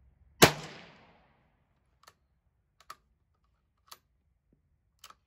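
A single rifle shot: one sharp, loud crack about half a second in with a short echoing decay, followed by several faint clicks about a second apart.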